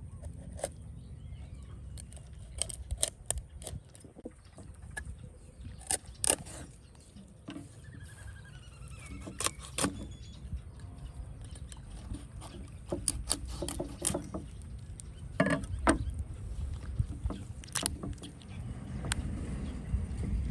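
Scattered knocks and clicks, as of objects being handled, over a low steady rumble.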